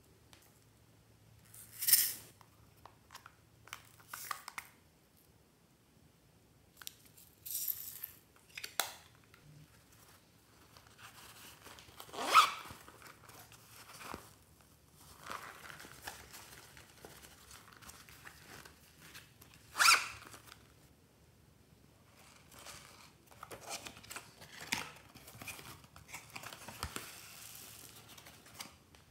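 Hands handling packaging and a fabric pouch while tipping small decorations into slime trays: scattered short tearing and rustling sounds, the loudest about two, twelve and twenty seconds in, with soft crinkling between.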